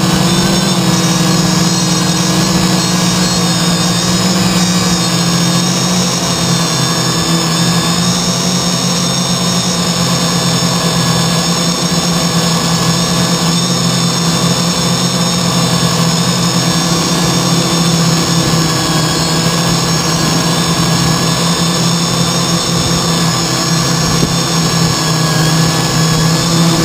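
CarbonCore Y6 multirotor's six brushless motors and propellers droning steadily, picked up through the frame by a hard-mounted GoPro. The pitch shifts a little now and then as the throttle changes.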